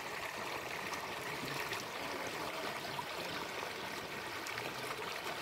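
Shallow stream flowing over flat rock slabs: a steady, even sound of running water.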